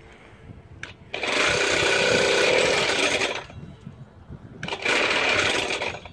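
A 49cc two-stroke scooter engine being cranked with the starter in two tries, the first about two seconds long and the second shorter, and it does not start. The owner puts the hard start down to the choke setting.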